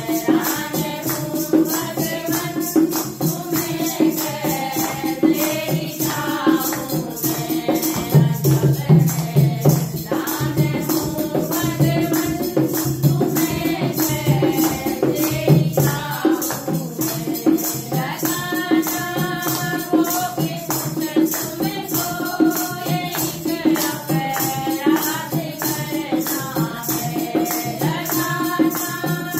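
A group of women singing a Hindi devotional bhajan in unison. Steady rhythmic hand-clapping, jingling wooden kartal clappers and a dholak drum play along.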